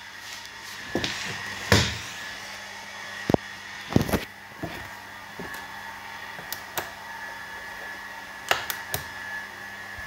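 Clicks and knocks as the door of a Samsung front-loading washing machine is handled and opened, the loudest about two seconds and four seconds in, over a steady low hum with a faint high whine.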